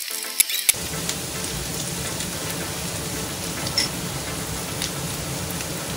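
Minced beef and onions sizzling steadily in a frying pan, with a couple of sharp clicks of a wooden spoon against the pan just before the sizzle comes up, under a second in.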